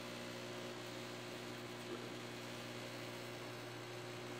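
Microwave oven running with a steady hum and fan noise while it heats a bag of microwave popcorn.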